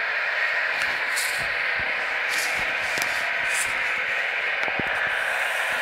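Steady hiss of a low-quality recording, with a few faint high ticks about a second apart.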